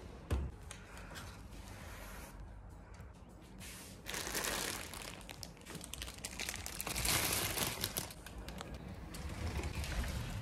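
Clear plastic garment covers crinkling and rustling as clothes on hangers are handled in a wardrobe, loudest in two spells about four and seven seconds in.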